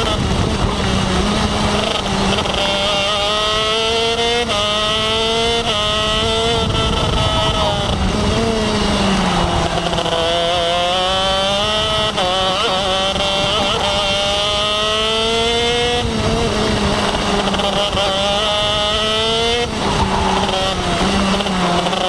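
KZ2 kart's 125cc two-stroke engine heard onboard under racing load. Its pitch climbs and drops back sharply at each upshift, falls away about eight seconds in as the kart slows for a corner, then climbs through the gears again.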